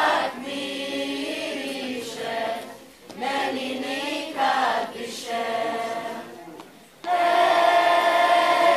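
Children's choir singing in phrases, with short breaks about three and seven seconds in; the phrase from about seven seconds on is louder and held on long notes.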